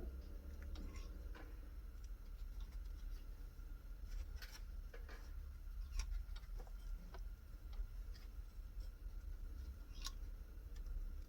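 Sparse light clicks and taps of small parts being handled on a workbench, the sharpest about four and a half, six and ten seconds in, over a low steady hum.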